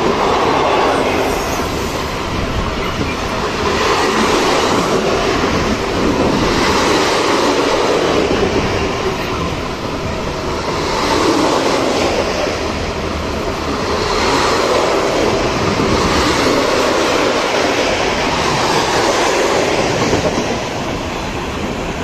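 Tank wagons of a freight train rolling past at speed close by: a loud, steady rush of wheels on the rails that rises and falls every few seconds as the wagons go by.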